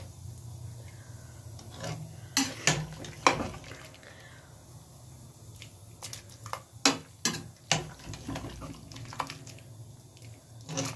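Metal slotted spoon stirring cooked tripe in thick gravy inside a metal pressure cooker pot. It gives irregular clinks and scrapes against the pot in two clusters, over a low steady hum.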